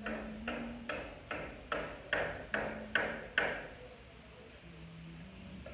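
A wooden spatula tapping against the rim of a nonstick frying pan, about eight even knocks with a short ring, about two and a half a second, stopping about three and a half seconds in.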